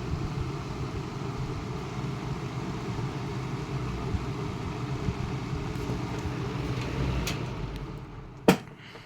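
Edison 12-inch box fan running with a steady motor hum and air noise. Near the end a sharp click comes from the fan's switch knob as the fan is switched off, and the hum dies away.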